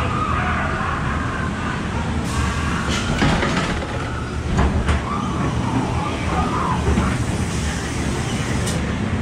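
Dark-ride car rolling along its track with a steady low rumble and hum, and sharp clacks now and then.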